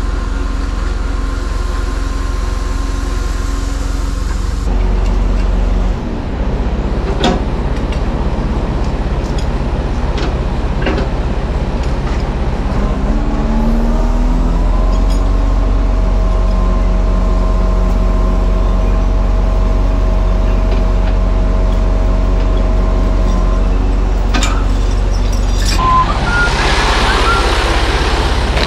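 Truck-mounted loader crane running: a steady drone from the truck engine and hydraulics, rising in pitch about 13 seconds in as the crane is worked and holding there, with a few sharp clanks. A loud hiss of air near the end.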